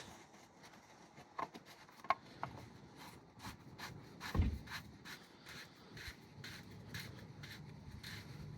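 Faint hand-tool work on machinery: scattered light clicks and scrapes, a run of even ticks in the second half, and one dull knock about four and a half seconds in.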